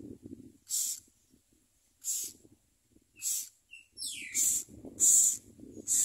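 Nestlings begging in the nest: about six short, high hissing rasps, roughly one a second, with one call falling in pitch about four seconds in. A low rumbling noise lies underneath at the start and in the second half.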